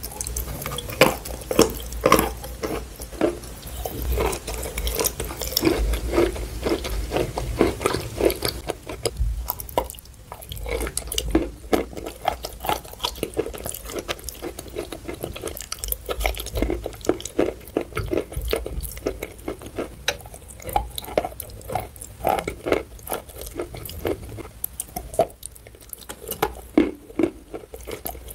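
Close-up chewing of wet chalk coated in chalk paste: moist, squishy mouth sounds with many small crackles and clicks.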